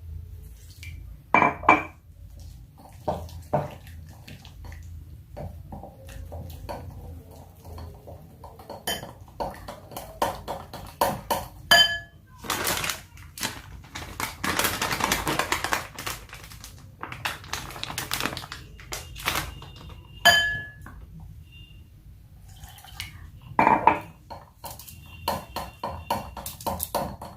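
A spoon clinking and scraping against a metal bowl while mixing besan (gram flour) batter, in many quick strokes, with a longer stretch of steady stirring noise about halfway through.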